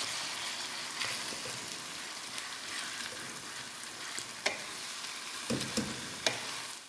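Pumpkin halwa sizzling in desi ghee over a low flame while a wooden spatula stirs crumbled khoya through it, with a few sharp knocks of the spatula against the pan in the second half.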